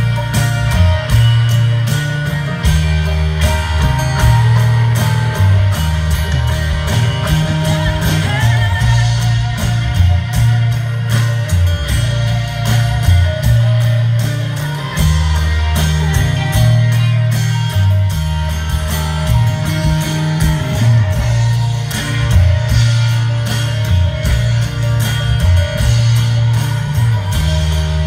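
Live folk-rock band playing through an outdoor PA, heard from the audience: guitar and banjo over a strong, changing bass line.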